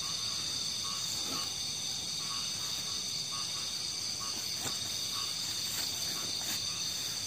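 Night chorus of insects and frogs: a steady high-pitched insect drone, with short calls repeating two or three times a second.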